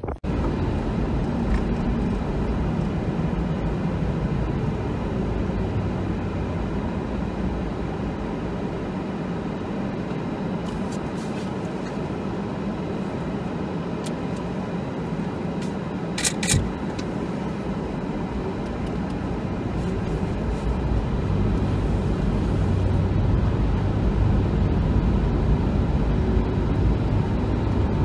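Steady rumble of a car's engine and tyres heard from inside the cabin while driving on snow-covered roads, with a brief cluster of clicks about halfway through and the rumble growing a little louder in the last few seconds.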